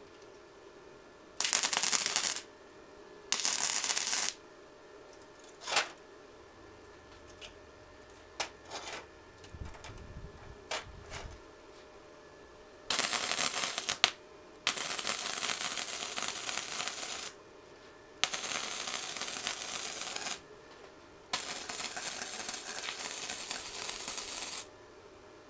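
Gasless flux-core MIG welder (YesWelder Flux-135 running .030 wire at 60 amps) arc crackling on thin galvanized steel tubing. There are two short tacks about two and four seconds in, then a few small knocks, then four longer weld runs of two to three seconds each in the second half.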